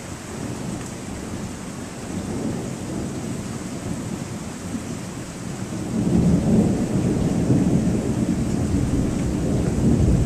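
Thunder rumbling over steady rain, the rumble swelling louder about six seconds in.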